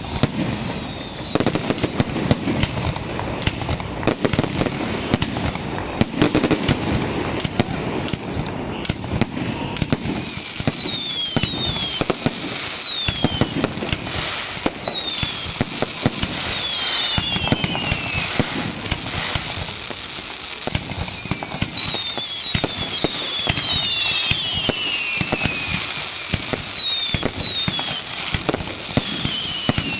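Fireworks display: a dense, continuous run of shell bursts and crackling. From about ten seconds in, a string of falling whistles is heard, one every second or two.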